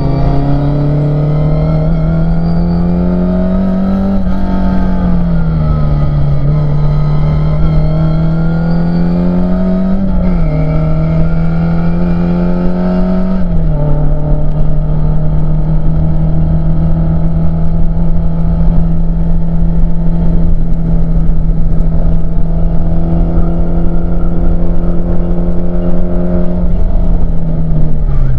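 Ford Escort Mk2 RS2000 race car's four-cylinder engine, heard from inside the cabin, climbing in pitch and dropping sharply three times in the first half as it is driven through the gears. It then holds a steady engine speed for about fifteen seconds before a short dip near the end.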